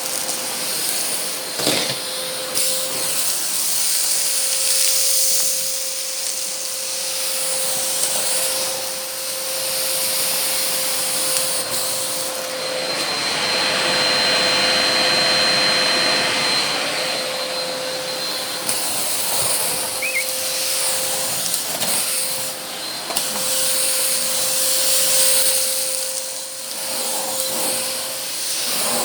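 Argos Simple Value vacuum cleaner running: a steady motor hum under a hiss of rushing air that swells and eases as it is worked. The hiss is loudest for a few seconds in the middle, and there are a few brief knocks.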